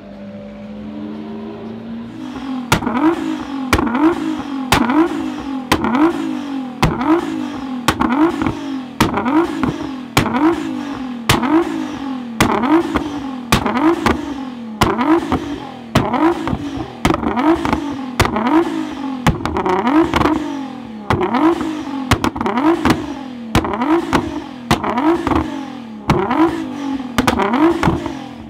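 R35 Nissan GT-R's twin-turbo V6 revved in short blips over and over, roughly one a second, with a sharp exhaust bang at each blip as the exhaust backfires and shoots flames. For the first couple of seconds there is only a fainter, steady engine note.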